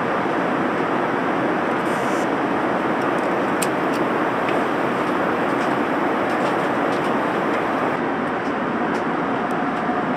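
Steady rushing roar of an Airbus A380 cabin in flight, with a few faint small ticks over it.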